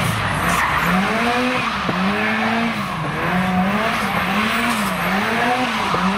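Car engine revving up and down about once a second while the rear tyres spin and squeal in a drift.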